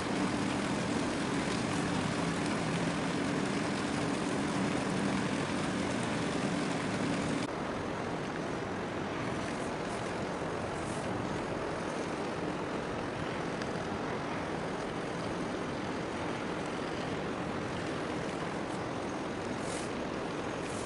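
A small harbour launch's engine drones steadily with a low hum of several steady tones. About seven seconds in it cuts off abruptly, leaving a fainter, even harbour rumble.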